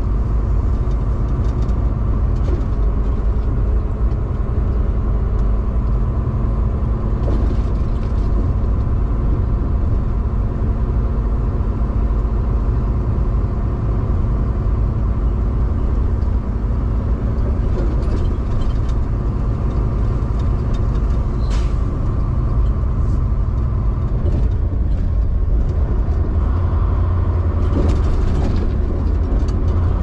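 Semi truck's diesel engine running steadily with road noise as the truck drives, with a few short clicks and rattles.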